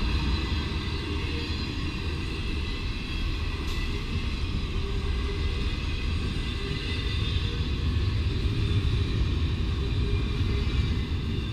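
Double-stack container cars of a freight train rolling past: a steady rumble of steel wheels on the rails, a little louder about eight seconds in.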